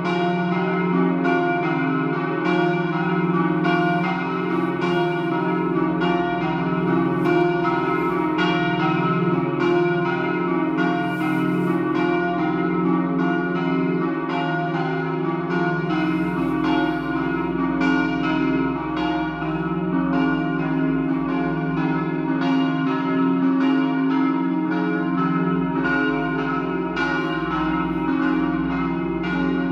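Church bells ringing together in a festive 'dopli' peal, a continuous stream of quick, evenly spaced strokes with the tones ringing on and overlapping.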